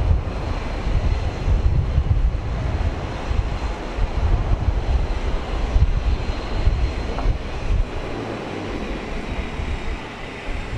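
A taxiing Boeing 737 airliner's jet engines running in the distance, an even hum with a faint steady high whine, under strong gusts of wind buffeting the microphone.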